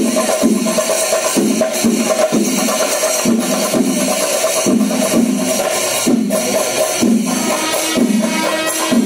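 Kerala temple percussion ensemble (chenda melam): chenda drums beaten rapidly with clashing ilathalam cymbals, in a steady repeating rhythm.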